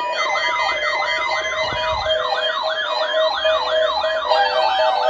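Weather radio receivers sounding their siren-style alert, a warbling tone that rises and falls about two to three times a second over a steady tone, set off by a weekly test broadcast. A second, faster warble joins about four seconds in.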